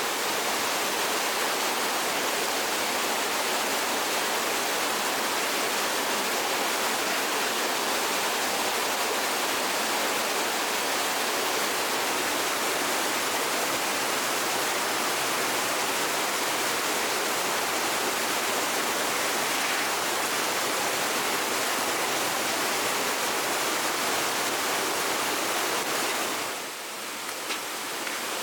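Steady rush of flowing water, an even hiss that dips briefly near the end.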